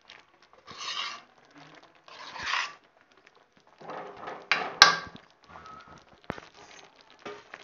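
Metal spatula scraping and stirring wet chopped cabbage in a kadhai, in three scraping strokes, with one sharp clink of metal on the pan near the middle and a few light taps after.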